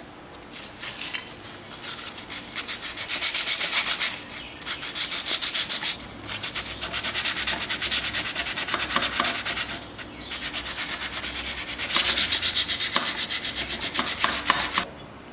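180-grit sandpaper rubbed by hand over the cast aluminium top triple clamp of a 2015 Honda CRF250R, in quick back-and-forth strokes. It comes in runs of a few seconds with short pauses between and stops just before the end. This is the rough sanding stage, cutting down the pitting in the rough casting.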